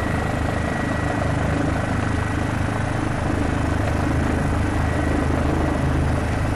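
Police helicopter rotor and engine running steadily, heard aboard the aircraft, with a thin high whine that stops about two-thirds of the way through.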